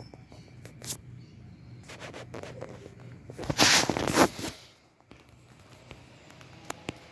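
Handling noise while an air conditioner is being taken out: scattered clicks and knocks, with one louder scraping rustle about three and a half seconds in that lasts just over a second.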